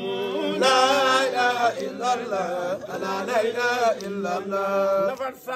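Men's voices chanting an Arabic Islamic devotional poem without instruments, in long, wavering held notes.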